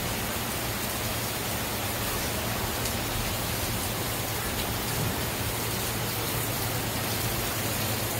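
Heavy tropical-storm rain falling steadily, an even hiss, with a steady low hum underneath.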